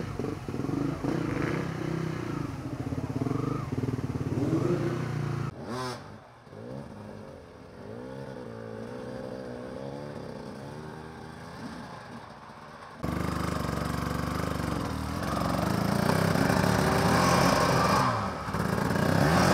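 Enduro dirt bike engines revving in uneven bursts as they labour over rough, steep ground. The engine is close for the first few seconds, then fainter and farther off with a wavering pitch. About two-thirds of the way in it cuts back to a loud, close engine straining and revving hard as the bike is hauled up a rock slope.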